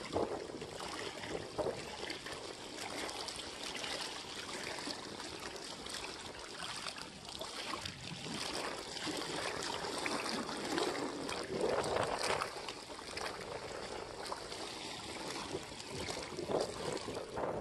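Small waves lapping and splashing irregularly against rocks at the water's edge.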